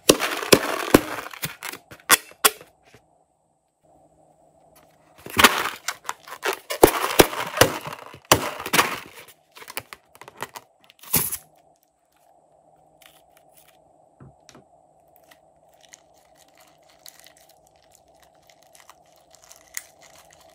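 A filled rubber balloon squeezed and rubbed by hand: two long bursts of crackling and squeaking rubber, then one sharp crack about eleven seconds in. After it come faint clicks as scissors cut into the balloon's neck.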